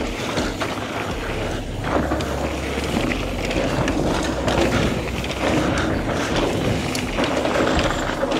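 Mountain bike riding fast down a dirt trail: tyres rolling over loose dirt and stones, with many short rattling clicks and a low rumble that comes and goes.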